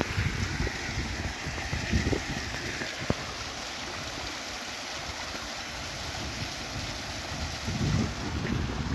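Water leaking through closed wooden canal lock gates, spouting and splashing into the lock chamber below in a steady rush. Wind buffets the microphone at the start and again near the end.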